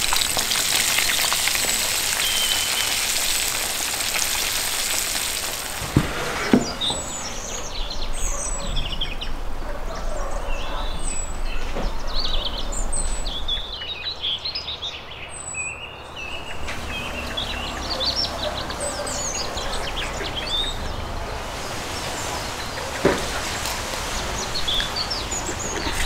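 Floured crucian carp sizzling in hot oil in a cast-iron pan for the first several seconds. After that, small birds chirp over and over, with a few clicks.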